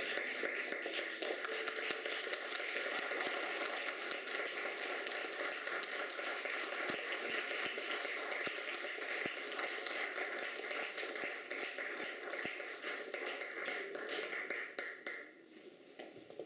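Audience applauding, a dense patter of hand claps that thins out and dies away about fifteen seconds in.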